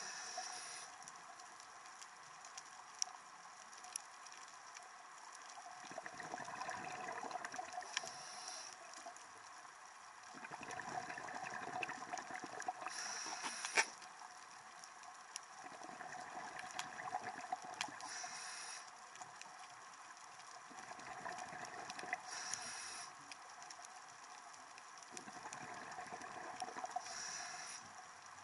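Scuba diver breathing through a regulator underwater: a short hiss on each inhale and a longer bubbling rush on each exhale, repeating about every five seconds.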